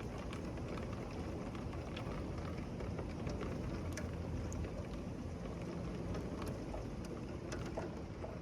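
Heavy rain pouring steadily in a thunderstorm, with scattered sharp ticks of drops striking a hard surface.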